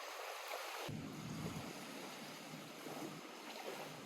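Lake water lapping and washing at the shore, a steady rushing sound. About a second in, a low wind rumble on the microphone joins it.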